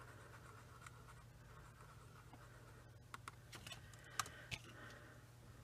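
Faint scratching of a paintbrush stirring watered-down acrylic paint on a craft mat, followed by a few light taps and clicks from about three seconds in, the sharpest just after four seconds. A low steady hum runs underneath.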